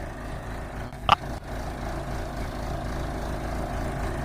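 Backhoe engine running steadily, with a brief shout about a second in.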